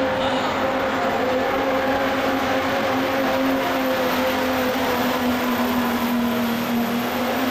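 Dodge Ram's Cummins turbo-diesel at full throttle under heavy load, pulling a weight-transfer sled. One steady engine note that sags slightly lower in pitch as the sled's drag builds.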